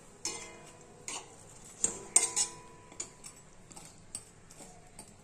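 A metal utensil clinking against a metal pan: about eight sharp clinks at uneven intervals, each ringing briefly, the loudest a little past two seconds in. The clinks come as fried bread pieces are set into and turned in warm sugar syrup.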